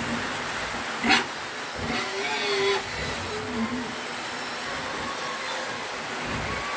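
Steady rain falling. A brief sharp high sound comes about a second in, and a short pitched call near two seconds.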